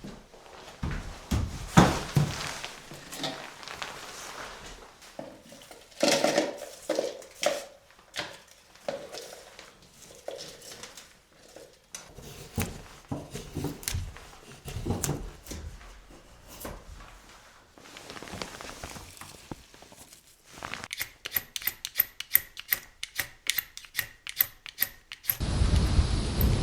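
Irregular clinks, knocks and clicks of hard objects being handled, such as pots or gear. Near the end comes a quick even run of about four clicks a second. Then the sound cuts abruptly to low wind noise on the microphone.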